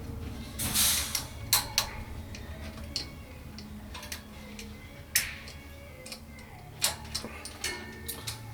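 Scattered clicks and short scrapes of wires and a small hand tool being worked into the push-in connections of a replacement cooler controller, over a faint low steady hum.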